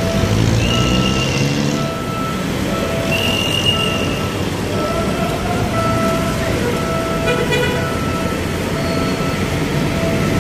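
Street traffic with running vehicle engines, and a steady electronic beep repeating about once a second.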